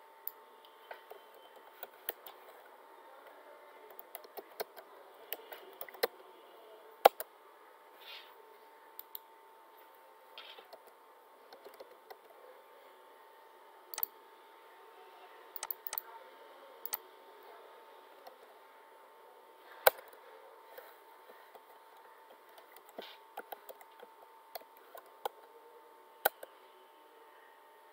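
Computer keyboard and mouse clicks: scattered single key presses and short runs of typing, irregularly spaced, over a faint steady hum.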